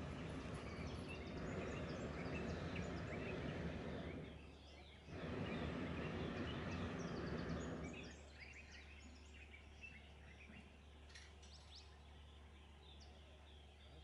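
Hot-air balloon's propane burner firing in two long blasts, broken by a short pause about four seconds in, then shutting off about eight seconds in. After that, many birds chirp.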